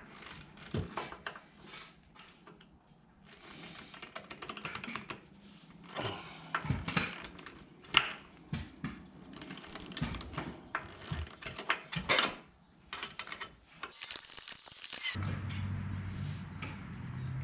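Hand tools clicking and knocking on the wood chipper's metal as its fuel tank is unbolted, in a run of irregular sharp clicks with a stretch of fast clicking about four seconds in. A low steady hum comes in near the end.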